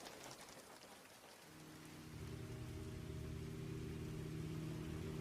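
Soft rain falling, with a low steady droning hum of several pitches setting in about a second and a half in and slowly growing louder.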